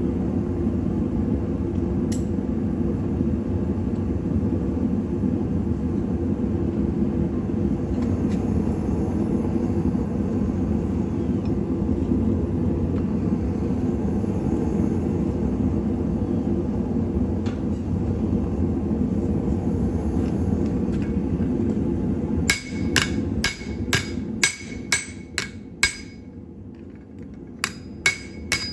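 Hammer blows on an anvil, forging a steel serving spoon: sharp ringing metal strikes at about two a second, starting near the end after a steady low rumble, with a short pause before a few more blows.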